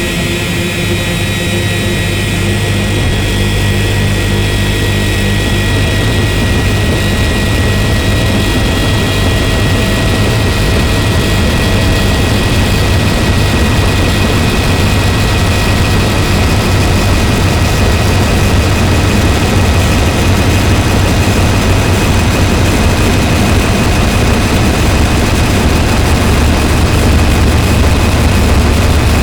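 Harsh noise drone from DIY noise synthesizers run through distortion pedals: a dense, continuous wall of distorted noise with a few steady high and low held tones, slowly growing louder and thicker.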